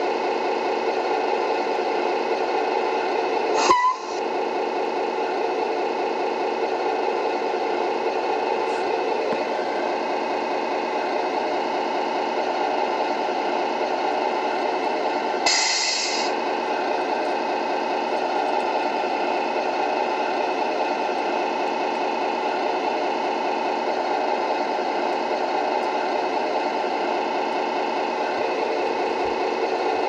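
Simulated diesel truck engine from a Tamiya MFC-03 sound unit, running steadily through the model's small speaker. There is a short sweep about four seconds in and a brief hiss about fifteen seconds in.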